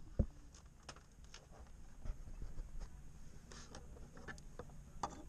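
Handling noise of an action camera being moved about at a desk: faint scattered knocks, clicks and rustles, with one sharper knock just after the start.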